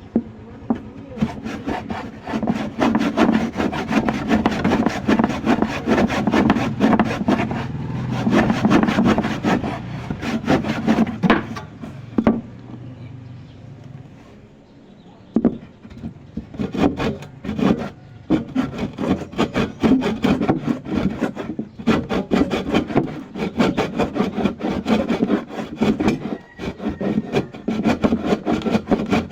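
Hand saw cutting with repeated back-and-forth rasping strokes, stopping for a few seconds about halfway through and then starting again.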